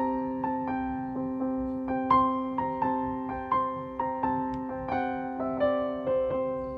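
Background piano music: a slow melody of struck notes, each fading, over a held low note.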